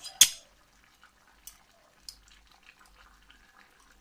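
One sharp knock of a wooden spatula against a metal karahi, then a few faint ticks and drips as tomato skins are picked out of the simmering mutton broth.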